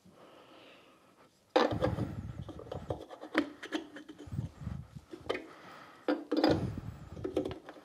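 Plastic MIG wire spool being turned and seated on the welder's spool holder, with its retaining cap being handled: three bouts of rubbing and scraping with sharp clicks, the first starting suddenly about a second and a half in.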